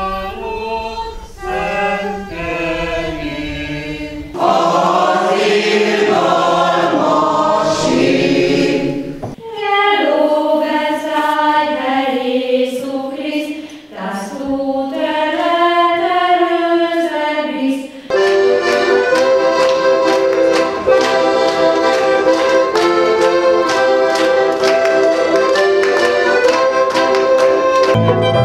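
Singing in short successive pieces, voices rising and falling in melody, with a group of girls singing in a church about halfway in. About two thirds of the way in it gives way to accordion music holding steady sustained chords.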